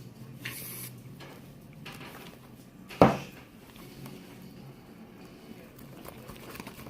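Quiet handling noises with one sharp knock on a hard surface about three seconds in.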